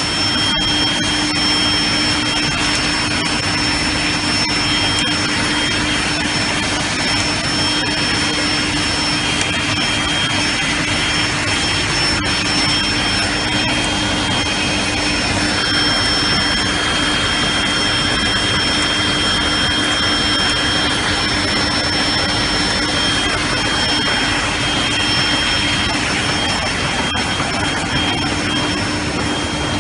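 Heidelberg Speedmaster CD 102 five-colour offset press with coating unit running: a loud, steady machine noise with a low hum and two high steady whines.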